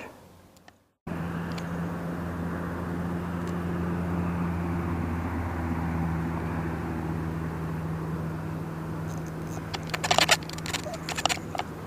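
A steady low engine drone with a hum, starting abruptly about a second in and holding fairly even, swelling a little midway. Near the end, a cluster of sharp clicks and rattles.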